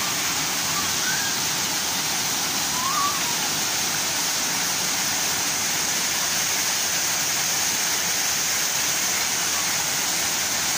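Waterfall pouring onto rocks and into a plunge pool: a steady, unbroken rushing hiss.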